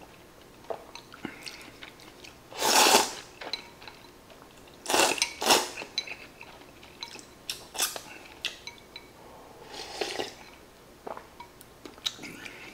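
Hot udon noodles slurped from a bowl: several noisy slurps, the loudest about three seconds in, others around five and ten seconds, with chewing between. Chopsticks click a few times against the ceramic bowl.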